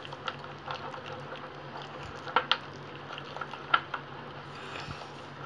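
Wooden spoon stirring a thick spice paste in a bowl: soft squishing with irregular clicks and scrapes of the spoon against the bowl, the sharpest a little past two seconds and near four seconds in. A steady low hum runs underneath.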